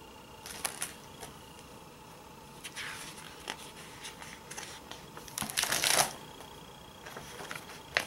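Pages of a large picture book being handled and turned: scattered paper rustles and light taps, with the loudest page swish about five and a half seconds in.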